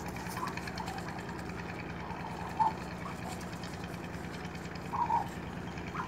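Ostrich chicks giving short calls, three times: once early, once in the middle, and a double call near the end. A steady low hum runs underneath.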